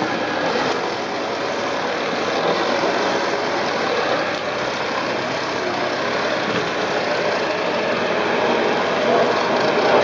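Philips Performer Active bagged cylinder vacuum cleaner running steadily, its turbo brush head being pushed over carpet and sucking up fur, hay, straw and bits of food.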